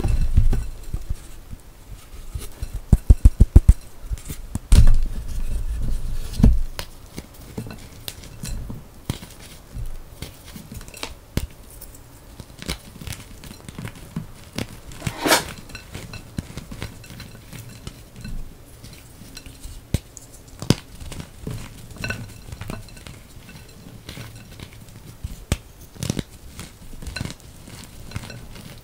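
Hands crushing and crumbling blocks of reformed gym chalk in a ceramic bowl: dry crunching and crackling with scattered sharp clicks. A quick run of loud low thuds comes about three to four seconds in, more thuds follow around five to six seconds, and there is one sharp crack near the middle.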